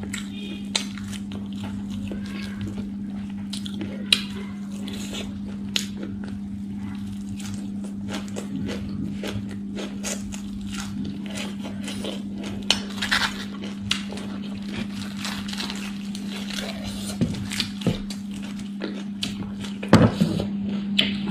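Close-miked eating sounds: chewing and crunching mouthfuls of singju, a raw vegetable salad, and crispy fried chicken, with scattered sharp clicks and crackles as fingers pick through the salad. A steady low hum runs underneath.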